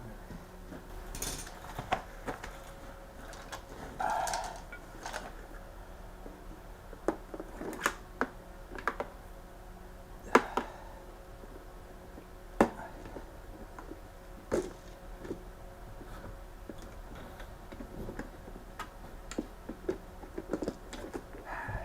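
Irregular clicks, clinks and knocks of hand tools and metal parts being handled while working under a car, over a faint steady hum.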